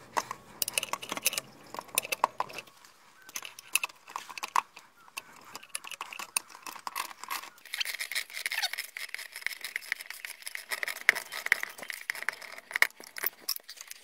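Socket ratchet and metal hand tools clicking and clinking as a 13mm deep socket on an extension is fitted to an exhaust manifold bolt. The clicks come scattered at first, then in a fast, dense run for several seconds past the middle.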